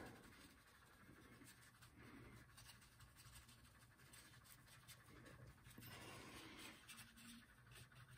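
Faint strokes of a blender brush rubbing across wet oil paint on a linen panel, blending the green background, otherwise near silence.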